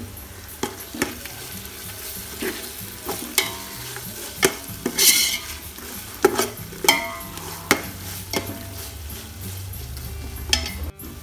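A spoon stirring and scraping onion-tomato masala with ginger-garlic paste as it sautés in oil in an aluminium pot, with the frying sizzle underneath. The scrapes come irregularly, roughly one a second, the loudest about five seconds in.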